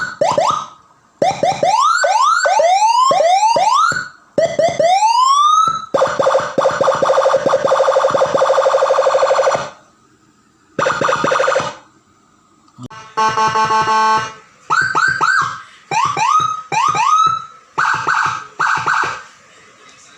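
Electronic siren module, freshly serviced, sounding through its tone patterns on test: quick rising whoops, a steady fast warble for about four seconds, then after short pauses a stepped multi-tone pattern and bursts of short rising chirps.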